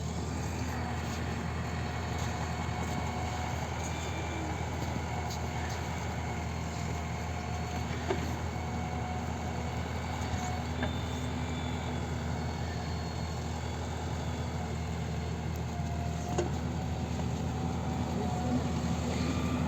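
A heavy engine running steadily at an even speed, a low continuous hum with a few faint clicks.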